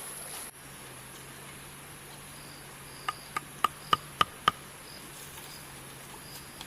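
Insects trilling steadily at a high pitch. About halfway through, six sharp knocks with a short ringing pitch come about four a second, the first two softer.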